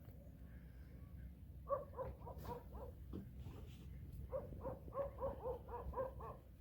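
A cat making quick runs of short calls, about five a second: six calls a little under two seconds in, then a longer run of about nine past the middle, over a low steady hum.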